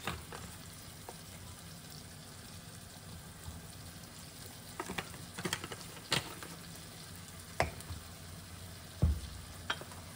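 Chopped onions, bell peppers and celery frying in butter and olive oil on high heat, a steady faint sizzle. Several sharp clicks and knocks come about halfway through and again near the end, one of them a dull thump.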